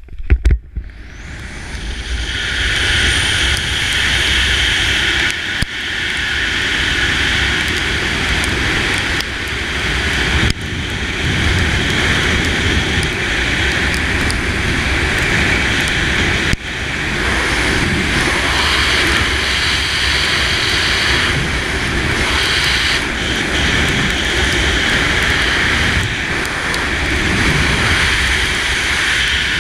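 Loud rush of wind over a helmet camera's microphone after the exit from a cliff in a BASE jump. A few sharp clicks mark the jump, then the wind builds over about two seconds with the gathering speed and runs steadily.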